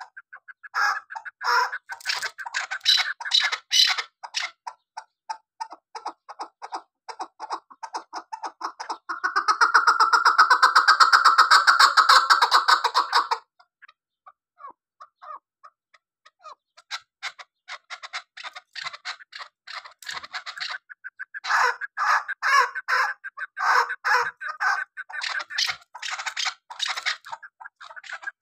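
Caged chukar partridge calling in rapid runs of short notes. About nine seconds in they build to a loud, fast chatter that cuts off suddenly some four seconds later; after a pause of a few seconds the rapid notes start again.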